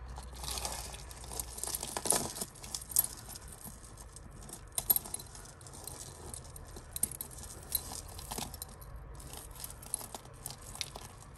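Costume jewellery clinking and jangling as pieces are picked up and handled, in irregular small clicks with a few sharper ones.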